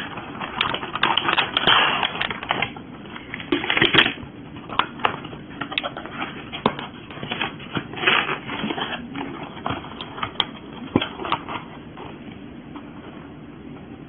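Cardboard box being opened by hand: paper flaps and an inner sleeve rustling and scraping, with irregular clicks and taps as a clear plastic tray is slid out.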